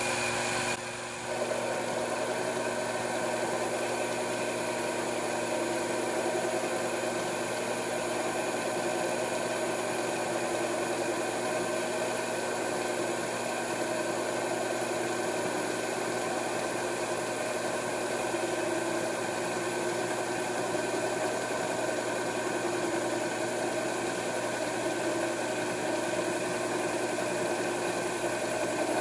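Grizzly G0765 7x14 mini lathe running steadily while a freshly ground high-speed steel tool takes a hand-fed cut of about fifty thousandths in 1-inch aluminum round stock, hogging the metal away with no trouble. The level dips briefly about a second in, then holds steady.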